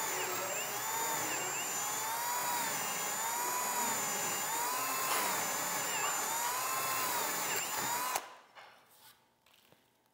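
Cordless drill boring a 5/8-inch hole through a rough cedar rail, its whine wavering up and down in slow swells; it stops about eight seconds in.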